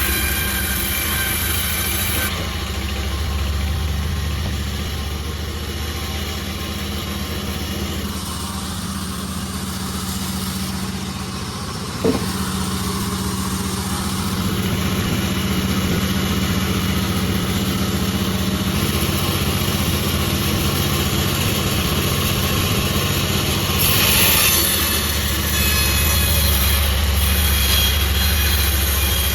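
Sawmill saw running and cutting through jackfruit wood, a steady machine noise with a high whine that shifts every few seconds as the cut goes on. A single sharp knock comes about twelve seconds in.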